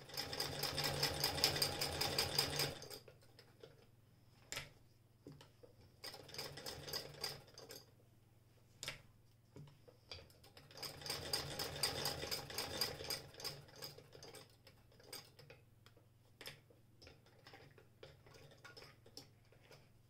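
Antique hand-crank sewing machine, an L.O. Dietrich Vesta sold by J.D. Williams & Co of Manchester, stitching in three runs of fast, even clicking: a loud run at the start, a shorter weaker one, and another about halfway through. Scattered single clicks and knocks of the cloth and machine being handled fall between the runs and near the end.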